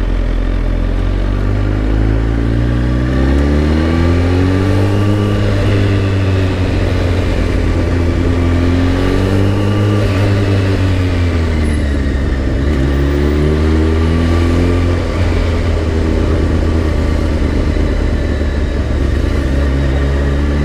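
2004 Kawasaki ZX10R's inline-four engine running in slow traffic, its note rising and falling three times as the rider opens and closes the throttle, then holding steady near the end.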